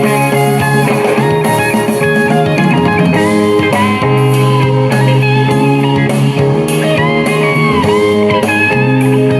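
Music played on the BS 39B Bluetooth speaker: an instrumental passage with a bluesy electric guitar lead bending notes up and down over a sustained bass line.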